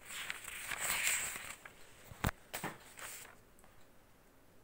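Paper rustling as a hand slides over and lifts a sketchbook page to turn it, with one sharp click a little after two seconds in and a few softer ticks just after.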